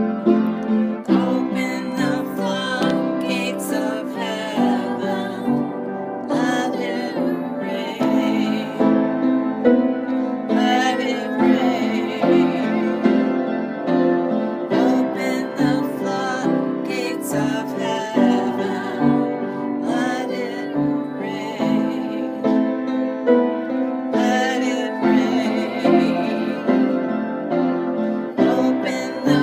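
Music: piano chords with a singing voice over them.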